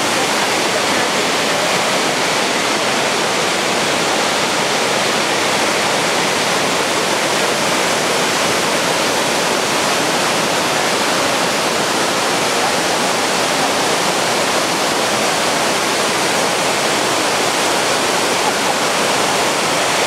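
Fukiware Falls, a wide cascade of water pouring over a long sloping rock ledge, making a steady, even rushing sound.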